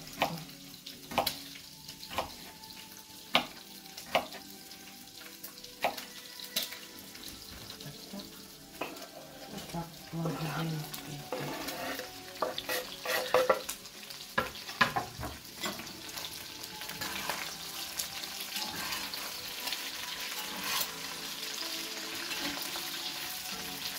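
A knife chopping onion on a wooden cutting board, a string of sharp strokes. About halfway through, the onion is scraped off the board into a hot cast-iron kazan of frying chicken gizzards, and the pan then sizzles steadily while it is stirred.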